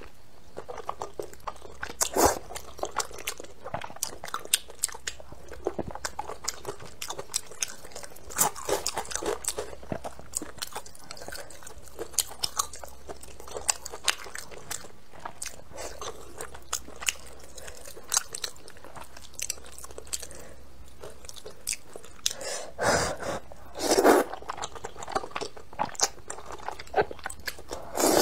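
Close-up eating sounds: wet chewing with crunches and small mouth clicks, broken by a few louder slurps of thick noodles and sauce, the loudest a few seconds before the end.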